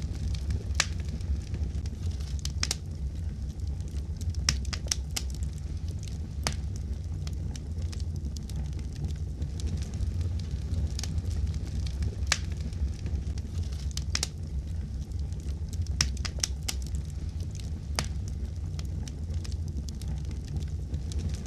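Fireplace fire crackling: a steady low rumble with sharp pops and snaps at irregular intervals.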